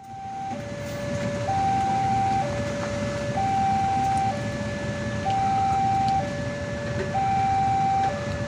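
Railway level crossing warning alarm: an electronic two-tone signal alternating high and low, each tone about a second long, warning that a train is approaching and the crossing is closed. Under it is a steady low rumble of idling motorcycle engines.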